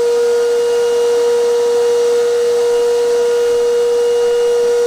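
Vacuum cleaner running steadily, a constant high motor whine over rushing air, as it sucks air through its hose from a homemade vacuum shoe in a first suction test.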